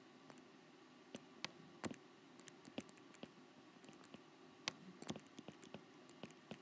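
Faint, scattered clicks and taps of a stylus on a tablet screen during handwriting, over a low steady hum.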